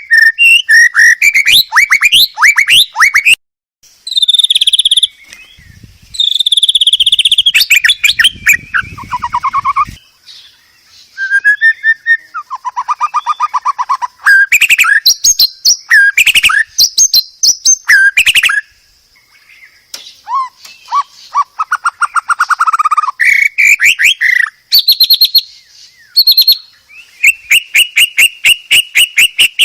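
White-rumped shama singing a loud, varied song: fast runs of repeated notes and trills mixed with rising and falling whistled phrases, broken by short pauses.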